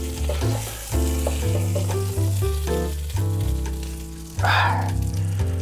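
Butter and oil sizzling in a casserole pot as a whole chicken browns, under background music with a changing bass line. About four and a half seconds in there is a brief louder rush of sizzle.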